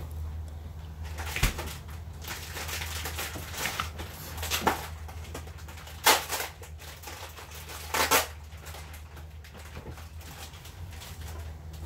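Kitchen cooking sounds: four or five short clattering, scraping knocks of utensils, over a steady low hum.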